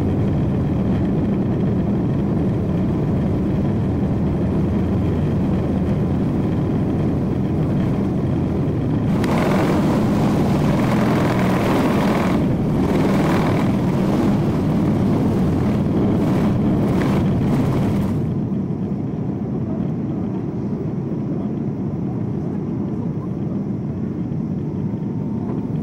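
Boeing 747-8's GEnx engines at takeoff thrust, heard from the cabin over the wing as a loud steady drone. A rattling rumble with repeated bumps builds through the middle of the takeoff run, then cuts off sharply about two-thirds of the way through as the wheels leave the runway, leaving the steady engine drone of the climb.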